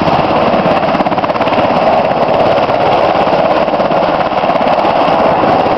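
U.S. Coast Guard MH-60 Jayhawk helicopter running on the ground with its rotors turning: a loud, steady, rapid rotor chop.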